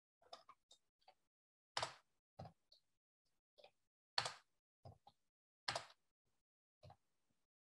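Computer keyboard keystrokes: about a dozen short, irregular key clicks with silence between them as a line of code is typed.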